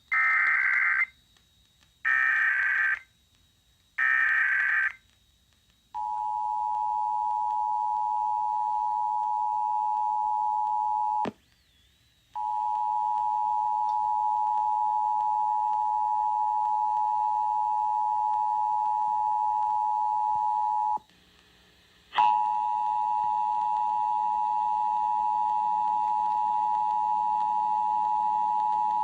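Emergency Alert System broadcast tones opening a Required Monthly Test. First come three short bursts of SAME digital header data, then the steady two-tone attention signal. The attention signal cuts out twice for about a second, each time resuming with a click.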